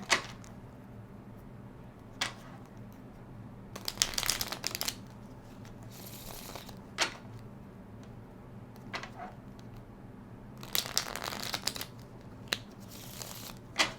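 Tarot deck being shuffled and handled: several short spells of cards rustling and riffling, with sharp card snaps or taps in between.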